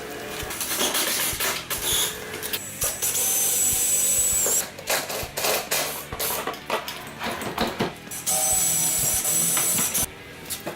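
A power drill running in two bursts of a couple of seconds each, each with a steady high whine, with clicks and knocks between them.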